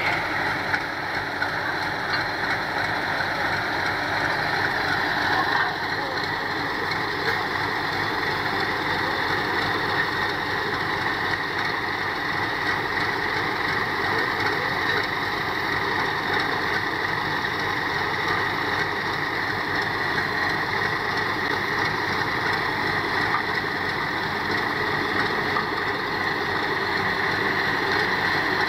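Heavy truck engine idling steadily.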